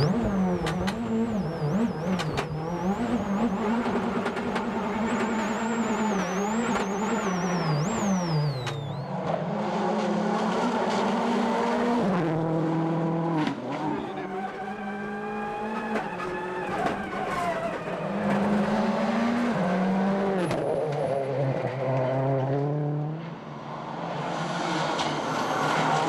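World Rally Car engine driven hard on a stage, its pitch climbing through each gear and dropping at the shifts, over and over. Sharp jumps in the sound point to several cuts between shots.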